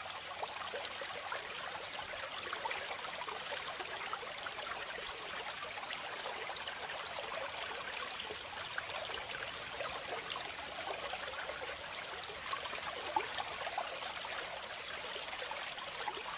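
A thin jet of water from a small toy pump's hose spattering on a muddy toy tractor and trickling off into a plastic truck bed, a steady splashing hiss with small drips and ticks throughout.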